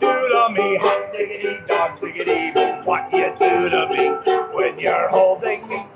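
Banjo ukulele strummed in a steady rhythm while a kazoo buzzes the melody over it.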